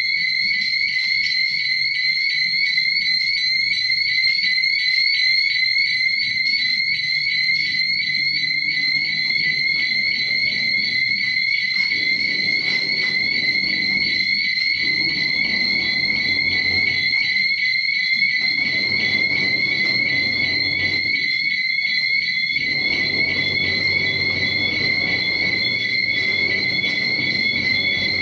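Fire alarm system's electronic sounder giving a continuous high-pitched tone, rapidly pulsing, with a fainter low rumble underneath.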